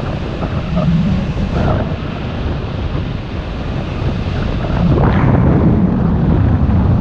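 Wind buffeting the camera's microphone on a paraglider in flight: a loud, steady low rumble that swells about a second in and again from about five seconds in.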